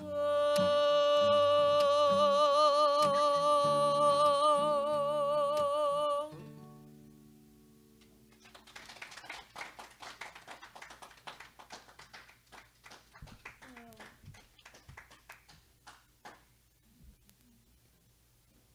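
A woman holds the closing sung note, 'oh', with a wide vibrato over a ringing acoustic guitar chord. She cuts off about six seconds in and the guitar rings away. Light scattered clapping with a few faint voices follows.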